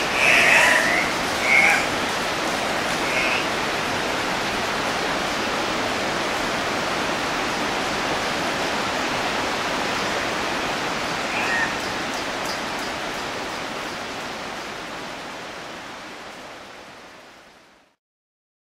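Andean cock-of-the-rock giving a few short, harsh squawks in the first three seconds and once more about eleven seconds in, over a steady rushing background noise that fades out near the end.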